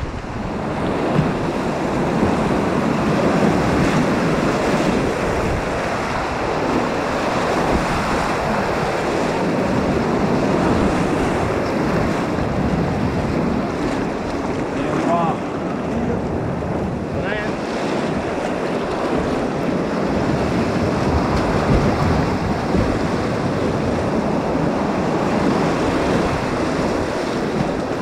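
River whitewater rushing and splashing around a kayak running a rapid, steady throughout, with wind buffeting the microphone.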